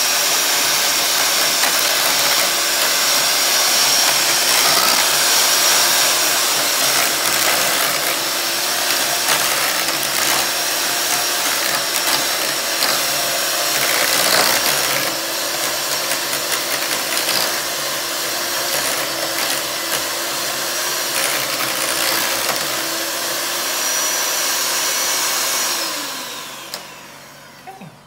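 Electric hand mixer running steadily, its beaters whipping mashed potatoes in a stainless steel saucepan. Near the end it is switched off and its whine falls away as the motor winds down.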